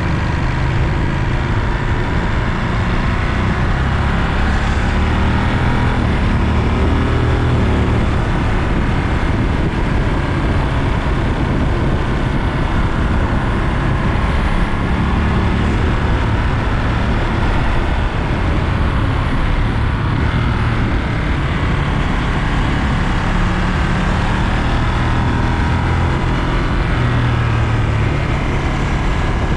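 Ducati Monster 937's Testastretta L-twin engine running while the bike is ridden, its note rising and falling a little with the throttle, over a steady rush of wind and road noise.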